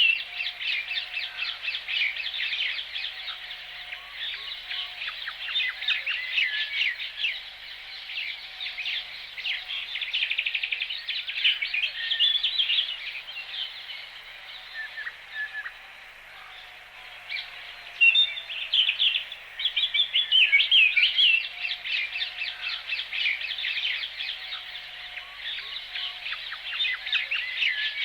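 A chorus of small songbirds chirping and trilling in quick, busy bursts, with a fainter, lower call repeating underneath. The chorus thins briefly around the middle, then picks up again.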